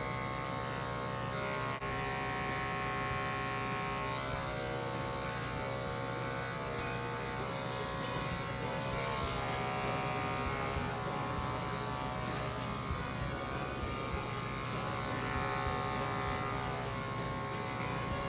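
Electric pet grooming clippers running steadily, a constant buzzing hum.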